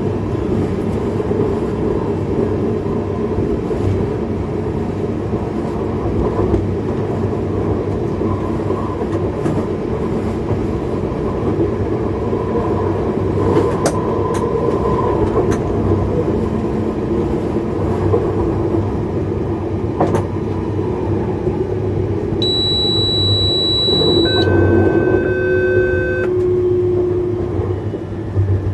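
X31 Öresundståg electric multiple unit running at speed, heard from the driver's cab: a steady rumble of wheels on rail with a few sharp clicks. Near the end, steady electronic tones sound for a few seconds and step down in pitch.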